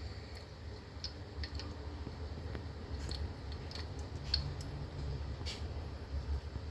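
Scattered light clicks and taps of small plastic toy parts being handled, over a low steady hum.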